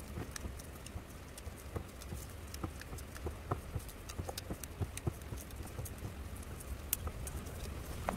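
Irregular light clicks and taps from cutting and handling succulents: a knife through fleshy stems, with plant pieces and pots being moved, over a low steady hum.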